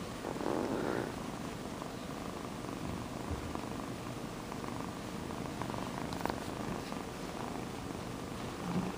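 Domestic kitten purring steadily, close to the microphone, with a brief louder noise about half a second in.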